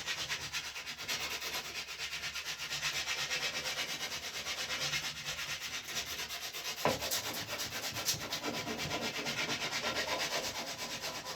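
80-grit sandpaper on a wooden block scraping back and forth over the wooden tips of a bow, in quick, even strokes of about five a second, cutting material fast. A brief sharp knock about seven seconds in.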